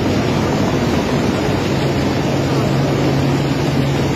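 Helicopter hovering low, its engine and rotor running with a steady low hum, over the rush of a fast, muddy flood torrent.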